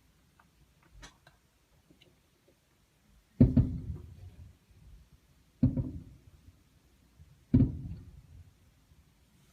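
Fireworks exploding: a faint pop about a second in, then three loud booms about two seconds apart, each with a trailing rumble.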